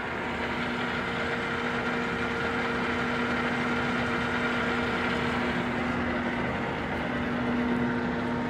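Martin D-80 heavy-duty lathe running with its chuck turning: a steady mechanical hum carrying a few steady whining tones.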